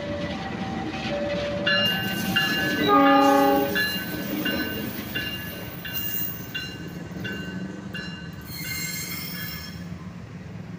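GE CC206 diesel-electric locomotive running past with a steady engine rumble, sounding its horn in one short blast about three seconds in. A level-crossing warning bell rings a repeating two-tone chime throughout.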